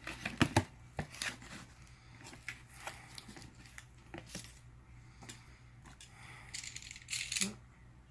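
A cardboard box and its packing being opened and handled by hand: scattered clicks, knocks, scrapes and rustling, with the loudest knocks about half a second in and a burst of rustling near the end.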